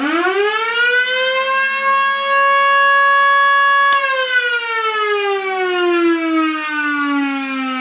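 Federal Signal Model 2 electromechanical siren on 240 V winding up to full pitch in about two seconds and holding a steady wail. About four seconds in it is switched off with a click and winds down in a long, slowly falling tone.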